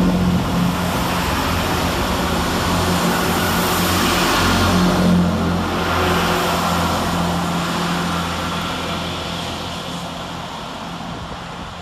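Diesel engines of a Class 165 Turbo diesel multiple unit under power as it pulls out, a steady engine hum with rail noise that swells about five seconds in, then fades as the train moves away.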